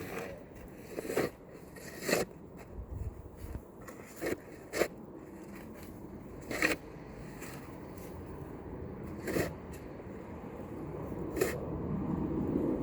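Snow shovel scraping and crunching through packed snow in short, irregular strokes, about nine in all, over a steady background hiss.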